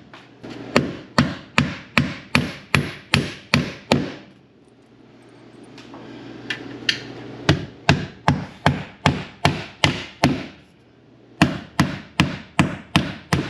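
Claw hammer driving nails through metal F&J ceiling trim into a wooden backer board: sharp, even blows about three a second. The blows come in three runs, with a pause of a few seconds holding only a couple of light taps, and a shorter pause near the end.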